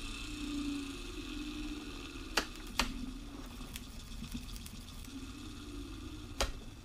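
Exposed armature of a brushed DC motor spinning on 12 volts, a steady low hum over a higher hiss, broken by a few sharp clicks. The carbon brushes are getting cooked.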